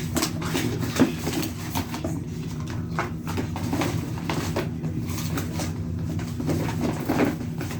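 Irregular clicks and light knocks of small objects being handled and set down, over a steady low hum.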